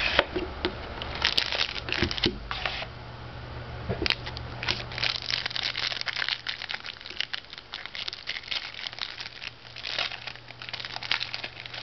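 Foil wrapper of a trading-card pack crinkling and tearing as it is worked open by hand, a dense run of irregular crackles.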